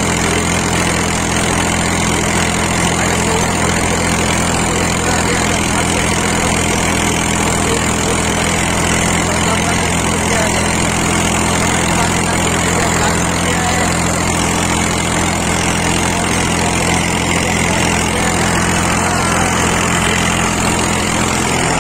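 Farm tractor's diesel engine running steadily at a constant pitch, heard close to the exhaust stack, while it pulls a rotavator through the field.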